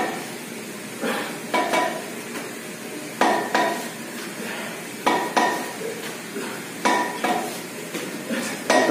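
Plate-loaded dumbbells clinking, the loose iron plates knocking together in pairs of sharp metallic clinks about every two seconds, in time with the lifts of a lateral raise.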